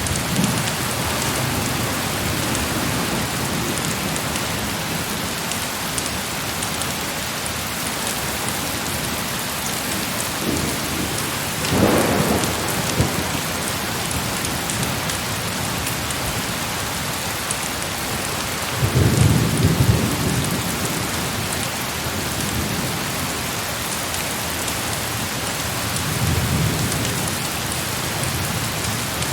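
Heavy rain falling steadily, with low rolls of distant thunder: a short one about twelve seconds in, a louder one a few seconds later, and a fainter one near the end.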